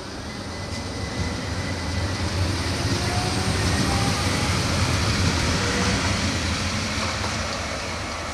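Articulated tram passing close by on the Ekeberg line. Its wheels rumble on the rails, growing louder to a peak about halfway through, then easing off as it moves away.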